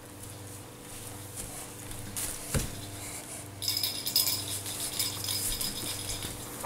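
Christmas decorations being handled: a single thump about two and a half seconds in, then, from a little past halfway, a crinkling, jingling rattle of tinsel and ornaments.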